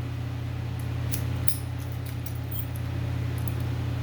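Electric fans running with a steady low hum, with a few light metallic clicks and jingles of a small padlock and its keys being handled.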